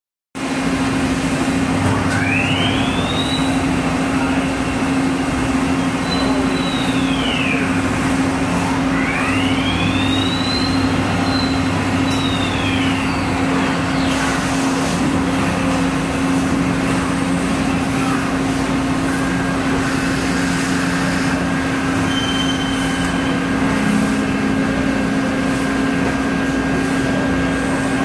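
2006 Mori Seiki ZT-1000Y CNC turning center running, a steady hum under a whine that twice rises in pitch and falls again as a spindle speeds up and slows down. A thin steady tone joins about two-thirds of the way through.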